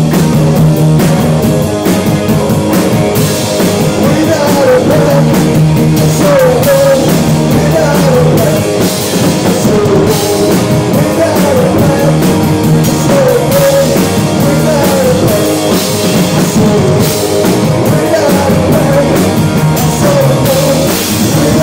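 A live rock band playing loud: electric guitars, bass guitar and drum kit, with singing over them.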